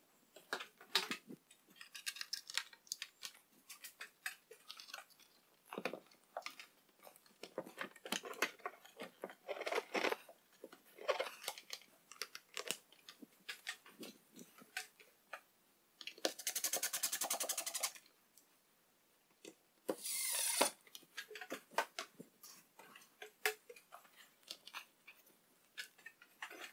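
Scattered clicks, knocks and plastic rattles of the mini cyclone and its hoses being handled and fitted to the wall. About two-thirds of the way through comes a rapid, even rattle lasting about two seconds, and a brief scraping rush soon after.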